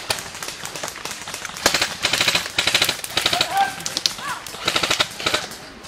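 Airsoft rifles firing several short full-auto bursts, a rapid clatter of shots starting a couple of seconds in and stopping shortly before the end.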